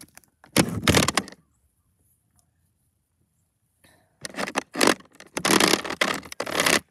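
Scraping and knocking of a plastic toy cat figurine being pushed along rough concrete blocks, with handling noise: a short burst about half a second in, then a longer run of scrapes from about four seconds in until near the end, quiet in between.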